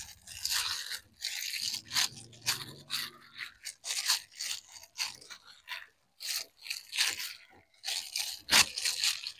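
A plastic bag worn over a hand crinkling and rubbing as rice-flour dough is kneaded in a stainless steel bowl, in quick, irregular rustling strokes.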